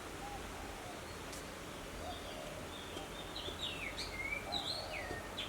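Birds singing: a quick run of short whistled notes that slide down in pitch, mostly in the second half, over a steady faint background hiss.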